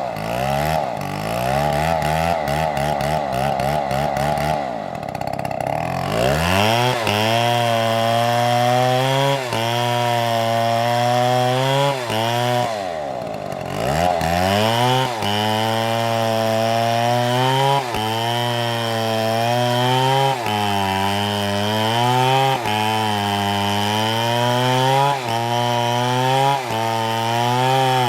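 STIHL two-stroke chainsaw running at high revs while cutting oak. Its pitch sags and recovers about every two seconds as the chain loads up in the wood, with a deeper drop and climb back twice.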